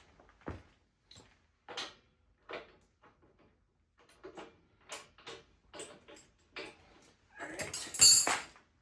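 Metal hardware and tools being handled: a string of light clicks and knocks, then a louder, ringing metallic clatter about seven and a half seconds in.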